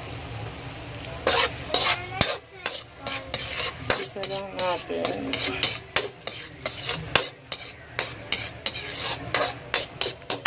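Metal ladle scraping and clanking against a wok while stirring garlic and onion frying in butter, over a steady sizzle. The ladle strokes begin about a second in and come quick and irregular.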